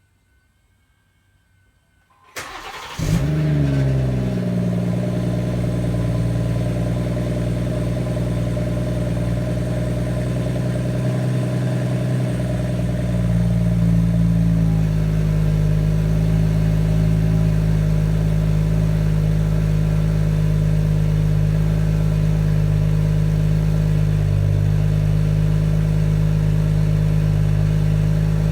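After a short near silence, the BMW M140i's 3.0-litre turbocharged straight-six is cold-started through the standard exhaust: a brief crank, then it catches, flares up and settles into a steady high idle, with the note stepping up slightly about halfway through. The owner hears a strange metallic rattle in this cold-start idle.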